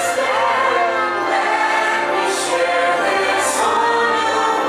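Fireworks show soundtrack music with a choir singing long held notes.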